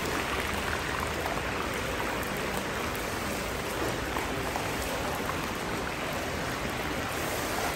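Meat sizzling and bubbling in hot oil at the bottom of a giant plov cauldron (kazan): a steady hiss.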